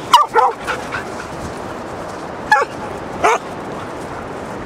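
Huntaway dog barking: a quick run of about four barks, then two single barks a few seconds later, over a steady background rush.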